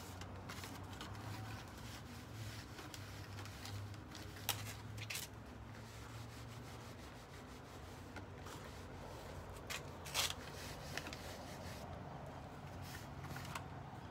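Faint rustling of ficus leaves being wiped with an oil-dampened cloth, with a few sharper crackles, the loudest about ten seconds in, over a low steady hum.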